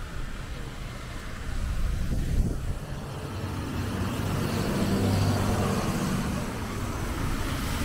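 A motor vehicle drives past on a city street over steady traffic noise. Its engine grows louder from about four seconds in and is loudest about five seconds in.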